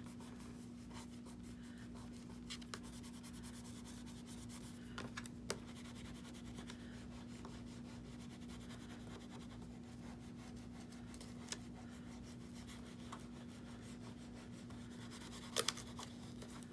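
Faint rubbing and scuffing of a foam-tipped hand tool worked over a paper butterfly cut-out on vellum, with a few light taps of the tool along the way. A steady low hum runs underneath.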